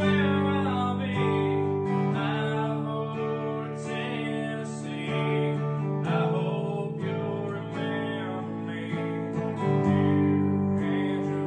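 Acoustic guitar music: strummed chords that change every second or two.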